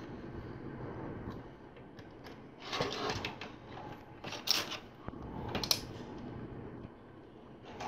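LEGO plastic pieces being handled and pressed together: three short bursts of small plastic clicks and rattles spread through the middle, over faint handling noise.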